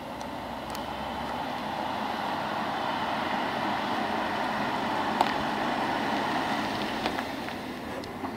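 Mercedes-Benz E-Class prototype driving slowly past: a steady hum of engine and tyres that swells as it approaches and fades as it moves away, with a light click about five seconds in.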